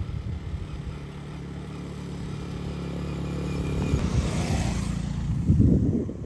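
Motor vehicle engine running at a steady speed, with a rushing noise swelling about four seconds in and a louder low rumble near the end.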